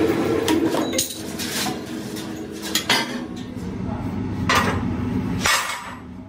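Steel plate blanks clanking and scraping as they are handled, a handful of sharp metallic hits. Under them a press machine hums steadily, loudest in the first second and dropping back after.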